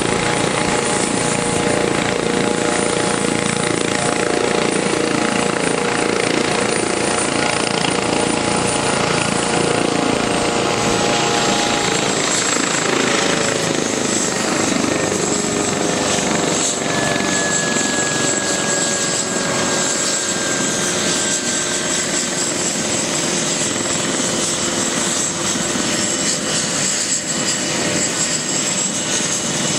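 Eurocopter EC155B helicopter's twin turboshaft engines running on the ground with the helicopter parked after landing, a steady loud turbine whine. A little past ten seconds in, the whine drops slightly in pitch and some of its tones fall away or slide lower.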